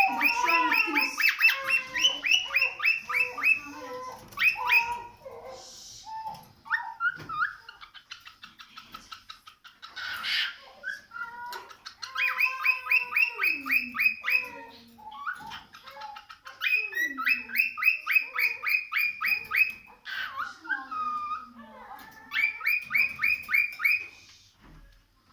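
Cockatiel calling in four bouts of rapid repeated chirps, about ten a second, with short whistles and falling notes between the bouts.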